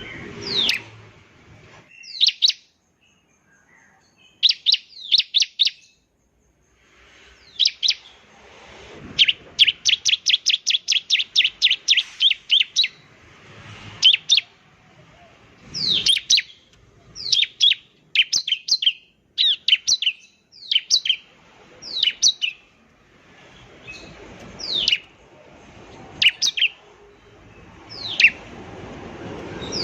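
Bar-winged prinia (ciblek) singing: bursts of sharp, high chirps that sweep downward, with a fast even trill of about four notes a second about a third of the way in.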